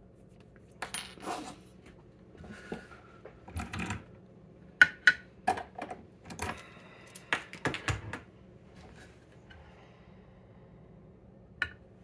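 Irregular metallic clicks and clinks as a brass dimple lock cylinder is handled, taken out of a small bench clamp and set down on a wooden pinning tray. The sharpest clacks cluster in the middle, with a short ringing clink among them and a single click near the end.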